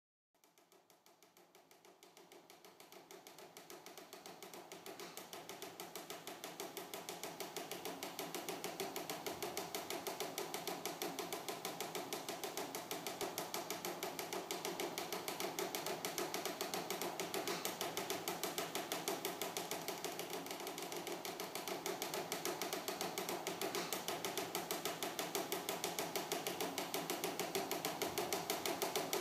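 Fax machine printing: a fast, even mechanical ticking rhythm that fades in over the first several seconds, then holds steady.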